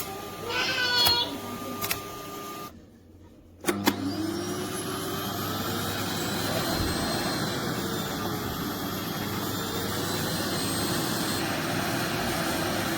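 Eureka WhirlWind bagless cylinder vacuum cleaner switched on a little under four seconds in with a click, spinning up and then running steadily.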